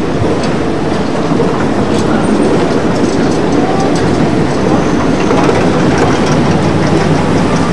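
PCC-type tram rolling past close by, a steady rumble from its steel wheels on the rails, with short clicks at irregular intervals.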